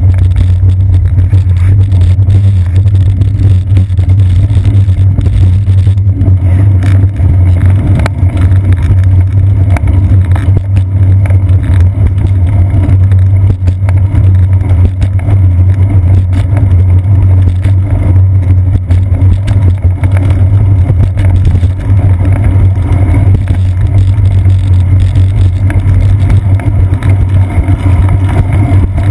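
Steady, loud low rumble of wind and road vibration picked up by a seat-post-mounted GoPro Hero 2 camera on a moving bicycle.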